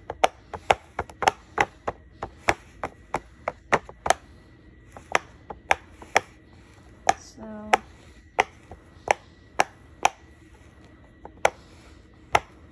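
Silicone push-pop fidget toy being popped bubble by bubble with a finger: a string of sharp pops, irregular at about two to three a second.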